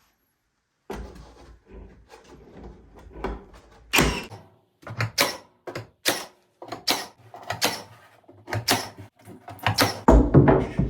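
A run of sharp wooden knocks and clatter, about two a second and growing louder after the first few seconds, as rough-cut pine boards are handled and worked into place.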